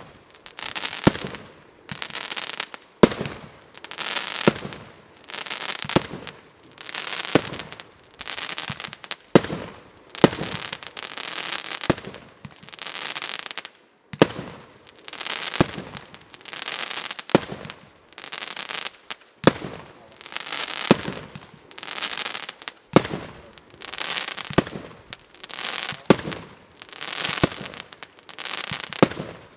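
A consumer fireworks cake (multi-shot battery) firing shot after shot, about one every one and a half seconds. Each shot is a sharp bang trailed by about a second of hissing noise.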